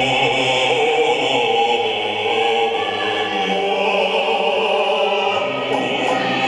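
Music with sustained, choir-like singing: long-held vocal chords that change slowly.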